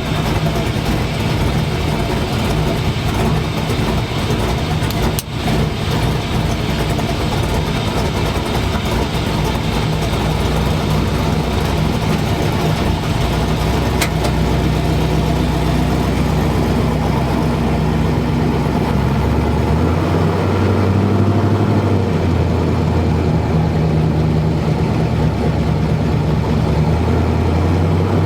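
LS V8 engine in a truck running on Holley Terminator X fuel injection, with a steady, even note. About two-thirds of the way through, the engine's pitch shifts to a different speed.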